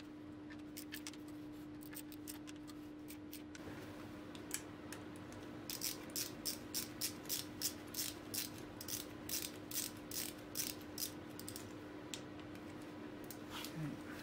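Hand ratchet clicking as small engine cover bolts are run down and tightened to 5 Nm: scattered clicks at first, then a steady run of about three clicks a second through the middle, over a faint steady hum.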